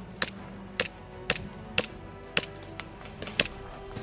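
Airsoft gun fired in single shots, sharp cracks about every half second, over background music with steady held notes.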